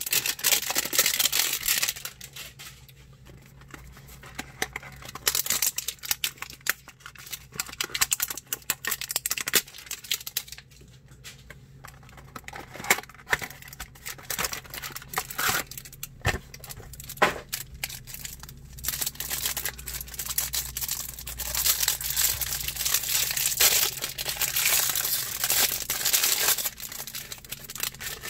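Cellophane wrapper around a stack of trading cards crinkling and tearing as it is pulled open by hand, in bursts with a few sharp clicks.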